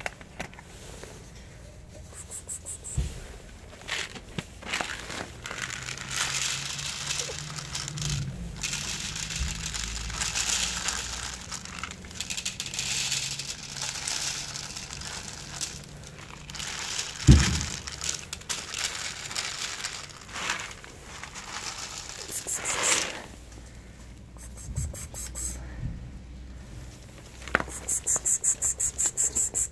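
Plastic bag of dry cat food crinkling and rustling as kibble is poured out onto plastic plates, with a single sharp thump about halfway through. Near the end comes a fast run of short crunches as a cat eats the kibble.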